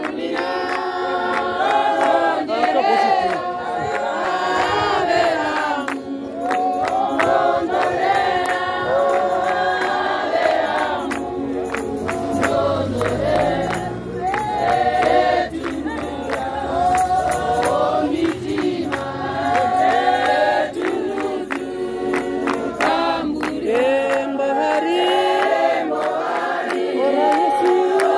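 Church congregation of men and women singing a hymn together, many voices at once, with sharp percussive beats running through the singing.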